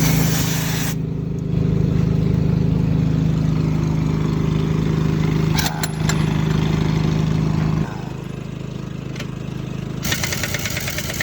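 An engine or motor runs at a steady hum, then cuts off suddenly about eight seconds in. Near the end a loud hissing, rattling noise starts up.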